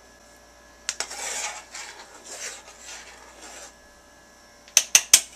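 Salt being shaken from a small shaker over a saucepan of water: a click, then four short rattling shakes, then three sharp clicks near the end.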